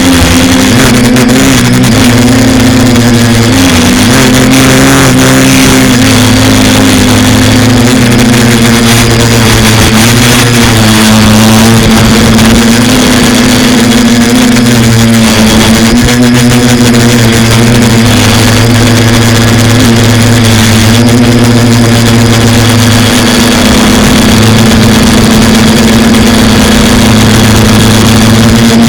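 Quadcopter's electric motors and propellers buzzing steadily in flight, the pitch wavering slightly with throttle changes.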